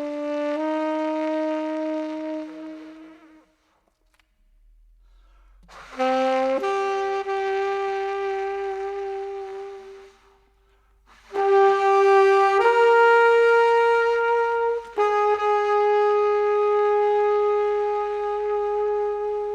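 Solo saxophone playing a slow melody in three phrases with short pauses between them, the last phrase settling into one long held note.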